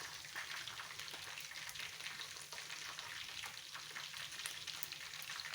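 Pot of jollof rice sizzling on the heat with no more water added: a steady hiss dotted with fine crackles.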